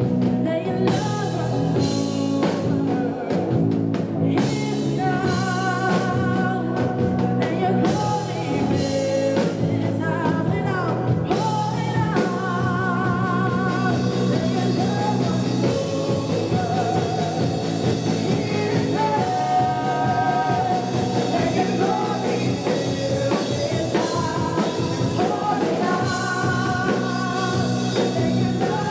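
Live worship band playing a song: a woman singing lead with vibrato over electric guitar, keyboard and drums.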